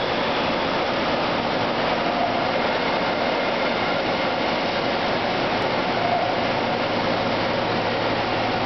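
Droop & Rein FS130SKE bed-type CNC milling machine running a program: a steady mechanical running noise with a faint low hum underneath.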